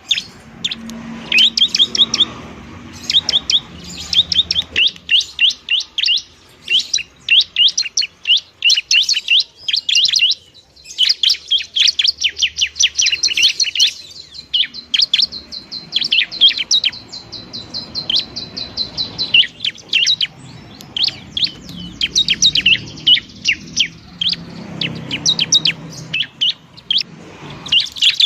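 Bar-winged prinia (ciblek) calling loudly and without pause: rapid runs of sharp, high, downward-flicking chirps, broken in the middle by a long trill held at one pitch for several seconds.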